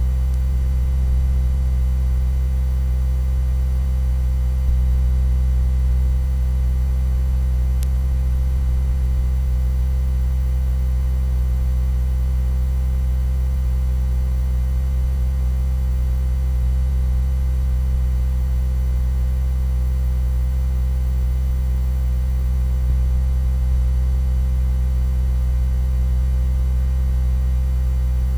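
A loud, steady low-pitched hum made of several constant tones, unchanging throughout.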